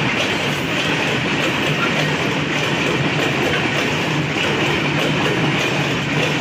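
Freight wagons of a long coal train rolling past, a steady rumble and clatter of steel wheels on the rails.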